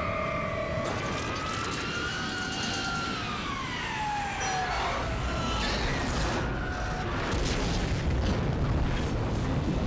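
Film sound effects of a passenger jet diving toward the ground: a high engine whine falls steadily in pitch over several seconds. Then comes the crash, a string of impacts and a deep explosion rumble that swells to its loudest near the end.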